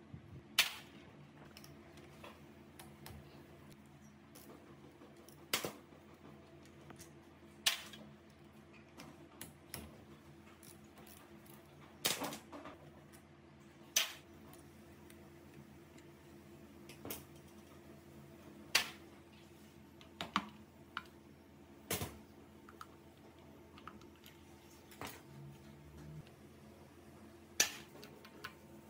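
Metal hand tools clicking and tapping against the parts of a Honda Super Cub C50 engine as it is worked on. About a dozen sharp, separate clicks come at irregular gaps of one to a few seconds, over a faint steady hum.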